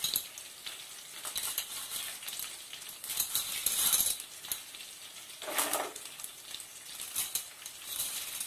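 Hot oil sizzling and crackling in an aluminium pot as cashews and onion pieces fry in a tempering, with louder bursts of crackling now and then.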